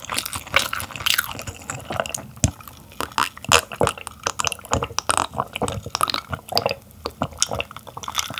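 Close-miked gulping and swallowing of a drink from a glass mug: a steady run of irregular wet gulps and throat clicks.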